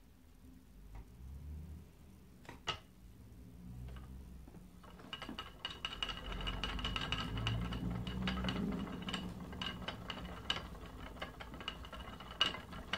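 Wooden spinning wheel turning as merino wool is spun: from about five seconds in, a quick run of mechanical clicks and a thin high whine from the wheel and flyer, over a low hum.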